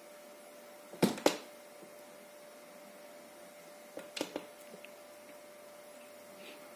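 A steady electrical hum with a few sharp clicks or knocks: two loud ones about a second in, and three smaller ones around four seconds in.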